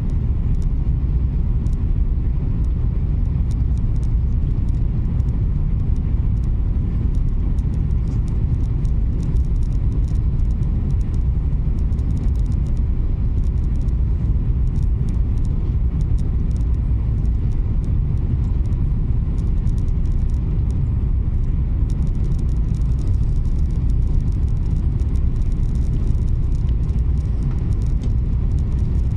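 Steady low rumble of an Italo Alstom AGV (ETR 575) high-speed train running at speed, heard from inside the passenger cabin.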